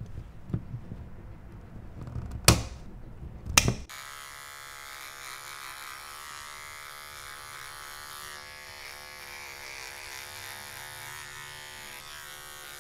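Dog nail clippers snip through a dog's nails with two sharp clicks about two and a half and three and a half seconds in. Then a small cordless pet clipper runs with a steady buzz, shaving out the fur between the paw pads.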